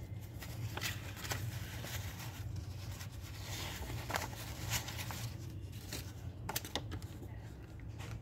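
A handful of paper banknotes shuffled and spread out by hand: soft rustling with scattered light ticks and brushes, over a steady low hum.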